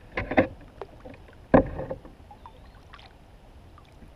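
Knocks from handling gear in a fishing kayak: a couple of short bumps at the start, one sharp knock about a second and a half in, then a few faint clicks.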